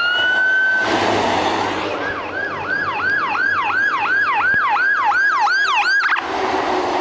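Fire apparatus electronic siren. A rising wail is held on one high note for about a second, then after a stretch of truck and road noise comes a fast yelp sweeping up and down about three times a second. The yelp cuts off suddenly about six seconds in, leaving a low engine hum.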